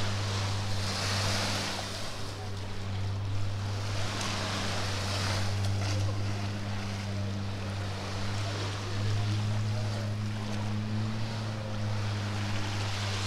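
Small waves washing onto a beach, swelling about a second in and again around four to five seconds, over the steady hum of a boat engine running.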